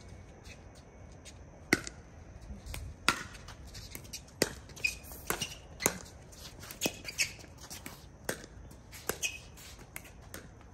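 Pickleball rally: sharp, hollow pops of paddles striking a plastic pickleball and the ball bouncing on a hard court, about a dozen in an irregular back-and-forth, roughly one every half second to second, as the players trade soft shots at the kitchen line.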